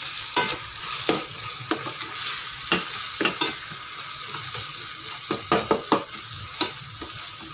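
Onions and tomatoes sizzling as they sauté in oil in a stainless steel kadai, a steady frying hiss. A steel ladle stirs them, scraping and clicking against the pan at irregular moments.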